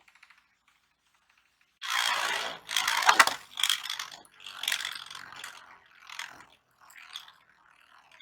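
A Beyblade spinning top launched with a ratcheting whir about two seconds in. It then scrapes and rattles as it spins in the stadium, in surges that weaken toward the end.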